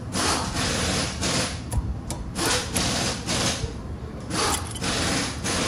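Repeated hand scraping or rubbing strokes, uneven, roughly one or two a second, as in cleaning the brake hardware during a pad change.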